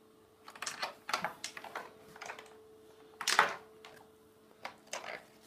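Irregular clicks and knocks of a webbing strap and its metal clips being handled against a drum's chrome lugs, starting about half a second in, the loudest knock about three seconds in.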